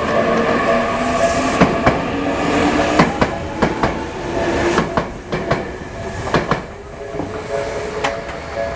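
Tokyu Ikegami Line electric train running over the level crossing, its wheels clacking over rail joints, often in pairs, with a motor whine rising in pitch over the first few seconds as it picks up speed. The crossing's warning bell rings steadily underneath.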